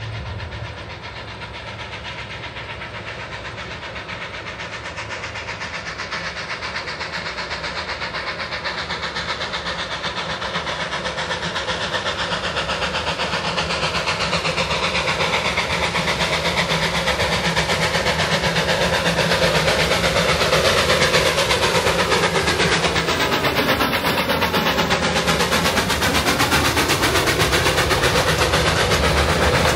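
Puffing Billy narrow-gauge steam train, led by NA class locomotive 12A with NGG16 Garratt 129 at the rear, working hard up the grade into Cockatoo, its fast exhaust chuffing mixed with wheels on the rails. It grows steadily louder over the first twenty seconds as it approaches, then stays loud as it draws close.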